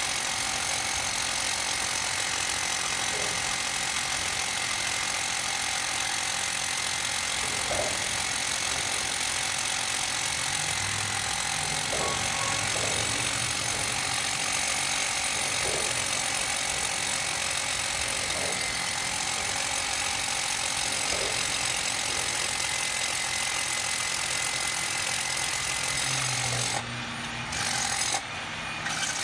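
Hammer drill boring into concrete, running steadily, then stopping and starting again in short bursts near the end.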